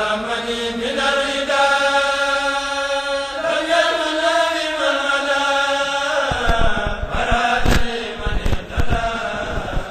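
Chanting of an Arabic religious poem in long, drawn-out held notes. After about six seconds the chant falls quieter, and a run of dull thumps comes in, the loudest near the end.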